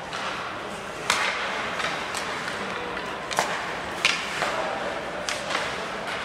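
Ice hockey play on a rink: several sharp clacks of sticks and puck and the scrape of skate blades on the ice, about six in all, the loudest about a second in and about four seconds in, over a steady arena hum.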